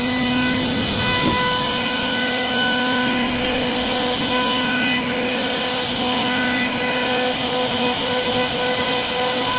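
CNC wood-carving router cutting into a wooden door panel: a steady high spindle whine over the continuous noise of the bit cutting the wood.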